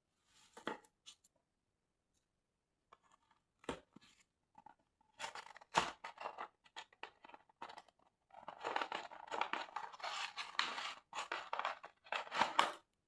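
Handling noise: scattered clicks and short rustles, then several seconds of dense, scratchy rustling from about eight seconds in.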